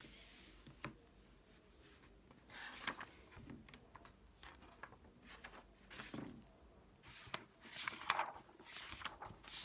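Quiet handling sounds: a scatter of rustles, light clicks and soft knocks as small objects or paper are picked up and moved, busiest near the middle and toward the end.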